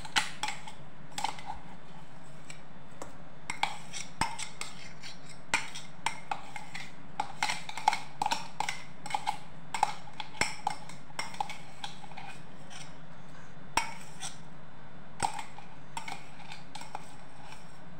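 A mixer-grinder jar and spoon clinking and knocking against a steel bowl as ground chickpea paste is scraped out: irregular sharp taps, a few louder knocks, over a steady low hum.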